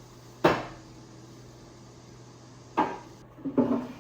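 Sharp knocks of bed-platform parts being handled and set in place: a loud knock about half a second in, another near three seconds, then a short clatter near the end.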